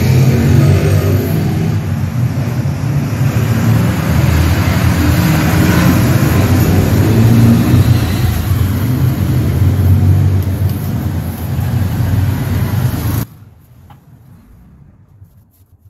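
A loud engine running steadily with a low rumble, which cuts off suddenly about thirteen seconds in, leaving only a few faint clicks.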